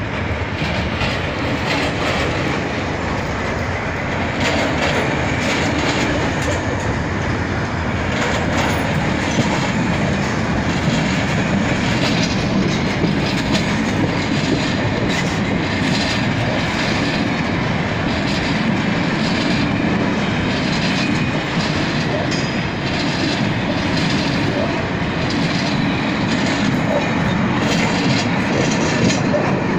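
Freight train wagons rolling steadily past at close range, wheels running on the rails with a continuous clatter as they click over the rail joints.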